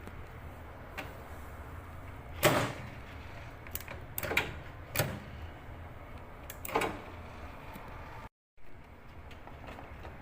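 Sharp clicks and knocks of plastic and metal microwave parts being handled and fitted, as a new door latch and cover go into place. There are about six separate knocks, the loudest about two and a half seconds in, over a low steady background.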